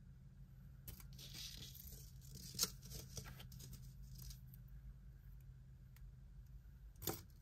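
Faint handling of earrings: soft rustling and a few light clicks, the sharpest about two and a half seconds in and another near the end, over a low steady hum.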